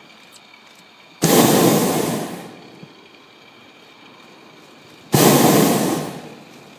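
Hot air balloon's propane burner firing in two blasts about four seconds apart, each starting suddenly and running about a second and a half before dying away.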